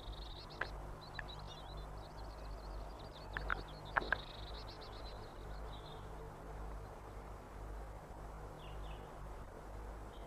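Tits twittering in rapid, high chirps for the first five seconds or so, with a few sharp taps around four seconds in, over a low steady hum.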